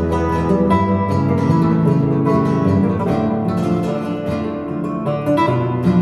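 Flamenco-style acoustic guitar music, quick plucked notes over steady bass notes, played back through Focal Aria 906 bookshelf speakers.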